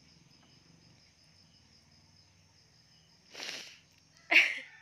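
Insects chirring steadily and faintly at a high pitch. Near the end a woman who has been crying gives two sharp breaths, a sniff and then a louder short breathy laugh.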